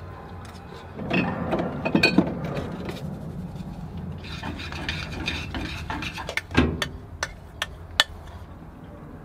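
Kitchen handling at a small galley stove: rustling and knocking about a second in, then oatmeal being scraped out of a stainless steel saucepan into a bowl with a spoon, with scraping and a run of sharp metal clinks near the end.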